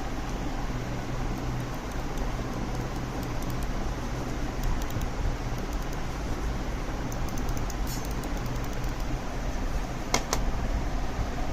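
Steady background hum and hiss, with scattered light clicks and two sharp clicks in quick succession near the end.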